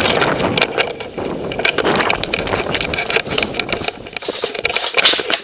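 Metal sling swivel on an airsoft AK-74M rattling an inch from the gun-cam microphone, a dense, irregular run of clicks and rattles as the rifle is carried, with footsteps crunching in snow beneath it.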